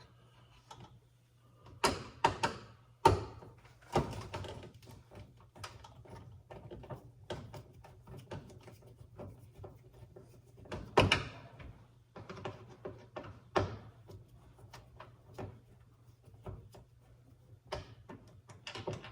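Scattered clicks and knocks of a screwdriver and plastic door parts being handled while a microwave door handle is unscrewed and pulled off, several sharper knocks standing out among lighter taps, over a steady low hum.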